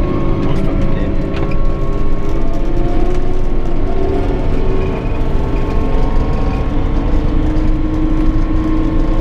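A vehicle engine running steadily under way, with a heavy low rumble and a pitch that dips slightly midway and then climbs again.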